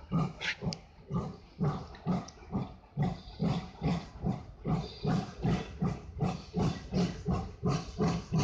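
FS Gr. 740 steam locomotive (740.293) working away under steam, its exhaust chuffs quickening from about two to about three a second as it gathers speed.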